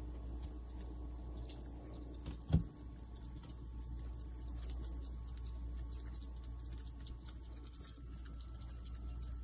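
Common marmoset giving a handful of short, very high-pitched squeaks, scattered through the stretch and bunched together about two and a half to three seconds in. A soft knock comes at about the same moment, over a faint steady low hum.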